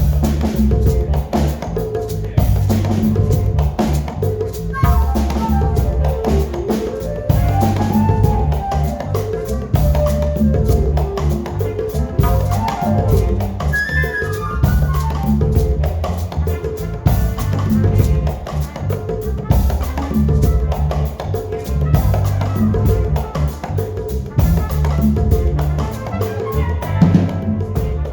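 A live band playing a steady groove on drum kit and bass, with melodic lines moving over it.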